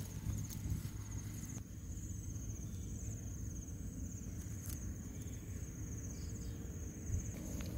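Insects trilling steadily in a thin, high, pulsing band, over a low rumble, with one sharp click about halfway through.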